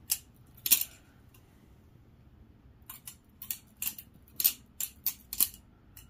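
Kershaw Lucha all-steel butterfly knife being flipped, its steel handles and blade clacking against each other. Two sharp clacks come near the start, then a pause, then a quick run of clacks over the last three seconds.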